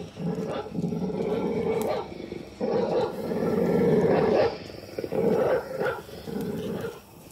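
A run of low, rasping growls, one after another, each lasting about half a second to two seconds; the longest and loudest comes a little before the middle.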